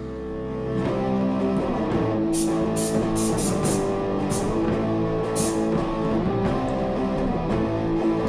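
Background music led by guitar, with short high-pitched percussive hits in the middle.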